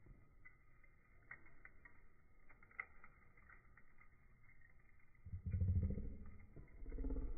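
Lump charcoal burning in a steel fire pit, with a few faint pops and crackles. About five seconds in, a low engine rumble rises, eases off, and swells again near the end. It is the loudest sound.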